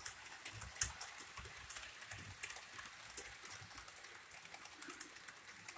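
Model trains running on the layout: faint, irregular clicking and light rattling of the wheels and cars on the track, with one sharper click about a second in.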